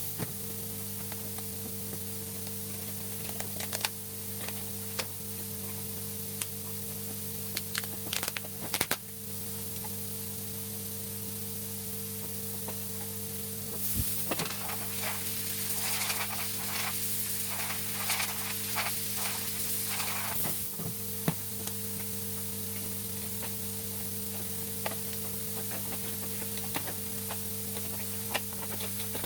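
A steady low hum with scattered clicks, and a stretch of scratchy, crackling rustle in the middle.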